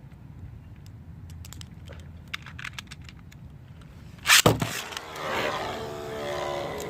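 Light clicks as Beyblade spinning tops are readied, then about four seconds in a sharp rip as the two tops are launched into the stadium, followed by the steady whirring of the two 3D-printed tops spinning and scraping in the stadium bowl.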